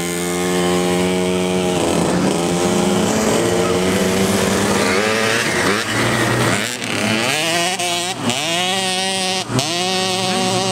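Small two-stroke youth motocross bikes riding past, their engine pitch climbing and dropping several times in quick succession, about once a second in the second half.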